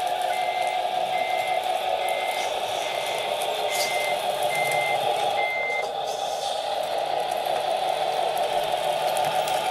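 Radio-controlled Tamiya Scania R730 truck reversing: an electronic reversing beeper sounds about once every two-thirds of a second and stops about six seconds in, over the model's steady running sound.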